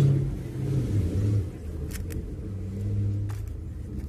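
A low, uneven rumble with a few faint sharp clicks, about two seconds in and again near three seconds in, as hands handle the plastic housing of the steam iron.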